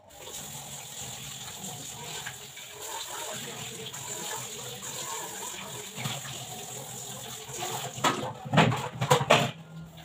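Kitchen tap running into the sink while things are rinsed under it, with a short burst of loud clattering of utensils in the sink near the end.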